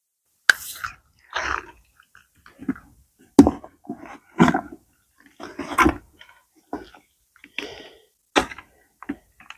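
Hands working in a bait bucket: irregular short rustles and scrapes mixed with sharp clicks and knocks, the loudest click about three and a half seconds in.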